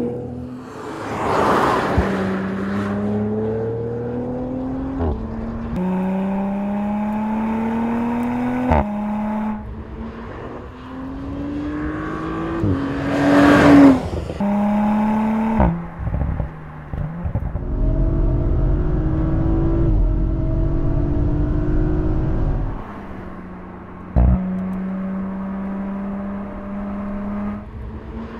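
Audi RS4 Avant's twin-turbo V6 accelerating hard through the gears, its pitch climbing and dropping back at each upshift. The car rushes past twice, about a second in and about halfway through. Near the end the engine holds a steady pitch.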